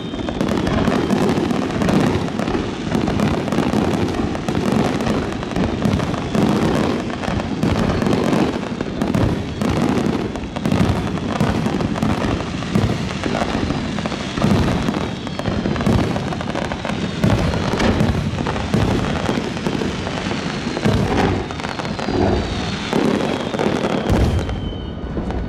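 Fireworks display: a dense, continuous barrage of shell bursts and crackling. Thin high tones fall in pitch through the second half, and the bursts stop just before the end.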